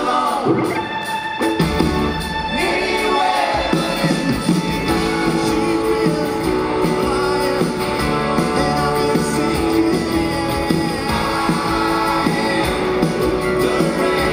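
Live rock band playing: a male lead vocal over guitar, mandolin and drums, heard from the audience in a large arena. The bass end of the band fills in about a second and a half in.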